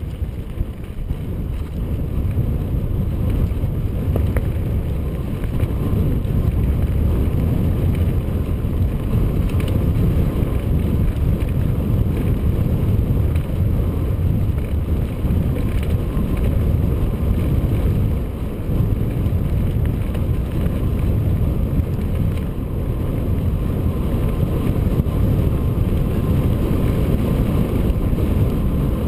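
Wind buffeting the microphone of a camera on a moving mountain bike, a steady low rumble, mixed with the bike rolling and rattling over a dry dirt singletrack.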